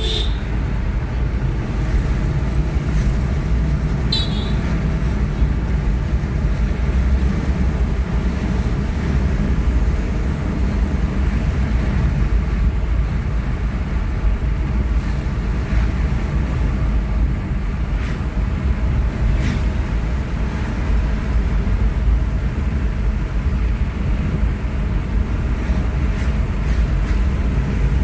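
Steady road noise inside a moving car's cabin: a low rumble of tyres on asphalt and the engine, with a few faint ticks.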